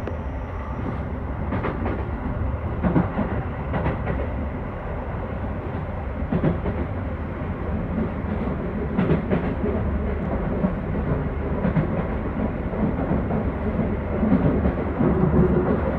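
Keio 5000 series commuter train running at speed, heard from inside a passenger car: a steady low rumble of wheels on rail, with irregular sharp clacks as the wheels cross rail joints.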